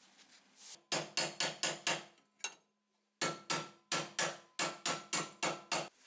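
Hammer blows on a split steel tube handle, closing up its slit: five quick, ringing metal-on-metal strikes, a short break, then about ten more at roughly four a second.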